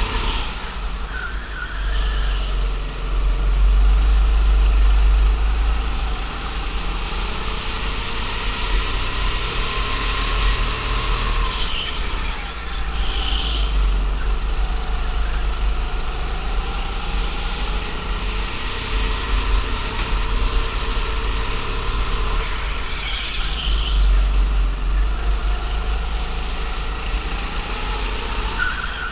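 Go-kart engine running under throttle, its pitch rising and falling again and again as the kart speeds up and slows for corners, over a heavy low rumble.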